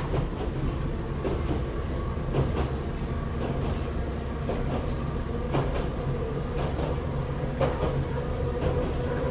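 Inside the Kanbara Railway's Moha 31 electric railcar running along the line: a steady low rumble with a faint steady hum, broken by a few sharp clicks of the wheels over rail joints.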